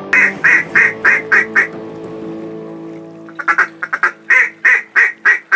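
Mallard quacking, loud and close: a run of about six quacks in the first second and a half, then after a pause a quicker string of short quacks running into longer ones. Guitar music fades out underneath during the first three seconds.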